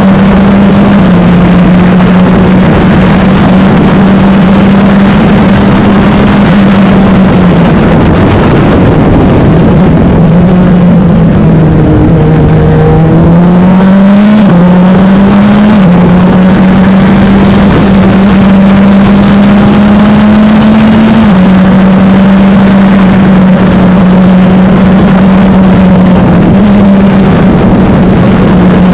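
Wolf GB08 sports prototype's engine heard onboard, very loud and steady at high revs. Through the middle its pitch dips and climbs again in a few steps, with sudden drops as gears change.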